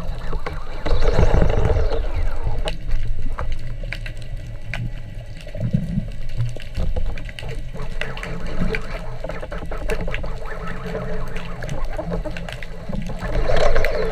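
Underwater water noise as a spearfisher swims: a steady low rumble of moving water with scattered small clicks, swelling louder about a second in and again near the end.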